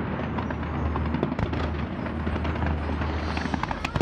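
Fireworks going off: a dense, irregular crackle of many small bangs and pops over a steady low rumble.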